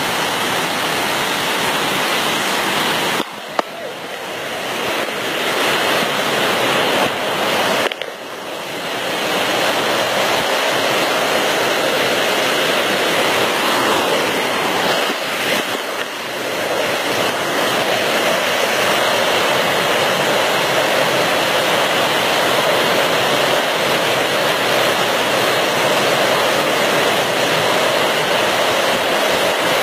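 Rainwater rushing down a flight of steps in a steady, loud torrent, with brief dips in level about three and eight seconds in.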